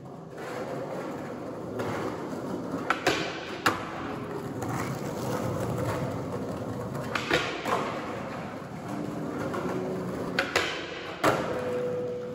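Skateboard wheels rolling over rough concrete, with about five sharp clacks and thuds of the board.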